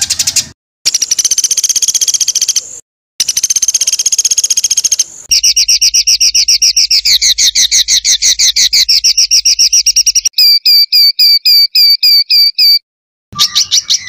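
Edited songbird training recording of rapid-fire 'tembakan' phrases: fast high trills, then a long run of quick repeated notes, then slower separate down-slurred notes about four a second. The segments are spliced together with abrupt cuts and short silent gaps between them.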